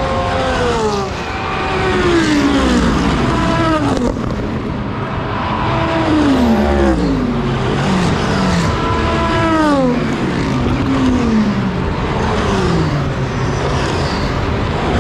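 A close stream of race cars passing at speed one after another, each engine note dropping in pitch as it goes by, about a dozen pass-bys overlapping with little gap between them.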